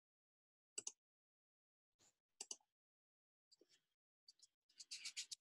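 Near silence, broken by a few faint, short clicks spread through the pause and a quick run of faint ticks near the end.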